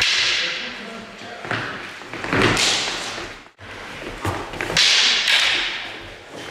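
Sticks striking in stick-fight sparring: several sharp hits of stick on stick, gloves or mask, each ringing briefly in the hall.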